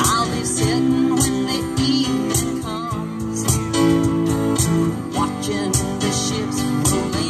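Live acoustic band music: a woman singing over strummed acoustic guitars, with a steady beat of hand-percussion hits.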